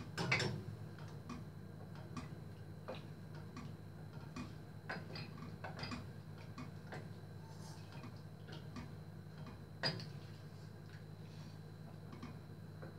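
Light, irregular clicks and ticks of a pot being set on a gas stove's grate and handled, over a steady low hum. The sharpest click comes just after the start, with another about ten seconds in.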